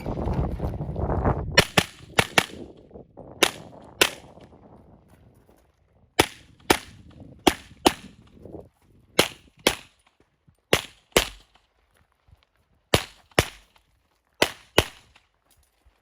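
Handgun shots fired in a practical-shooting stage: about eighteen sharp cracks, mostly in quick pairs with a second or so between pairs. A short rush of low noise comes before the first shot.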